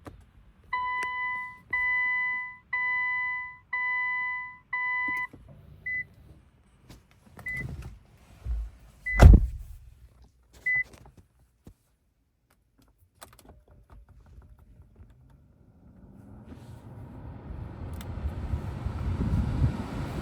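A car's electronic warning chime sounds five times, about one a second, followed by a few short high beeps and a single heavy thunk about nine seconds in. From about sixteen seconds a steady rush of noise rises.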